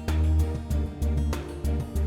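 Background music with a steady beat and a pulsing bass line.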